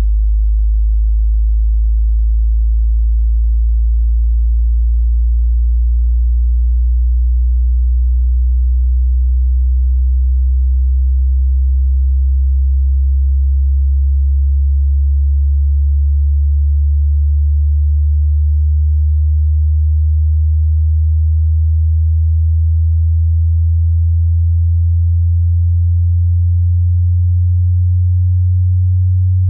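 Hearing-test sine tone sweeping upward: a single pure, very deep tone climbing slowly and steadily in pitch.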